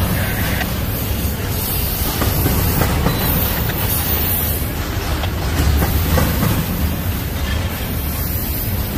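Union Pacific double-stack intermodal freight train rolling past, its well cars making a steady low rumble of steel wheels on rail.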